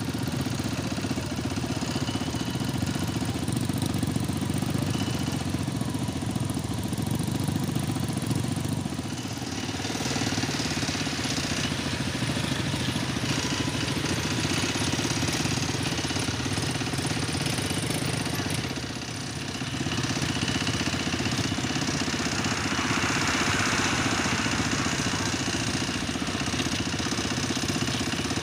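A motor vehicle engine running steadily close by, dipping briefly twice.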